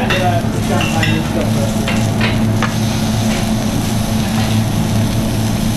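Spring onions sizzling on a hot flat-top griddle, with a few light clicks of metal tongs in the first three seconds, over a steady low hum.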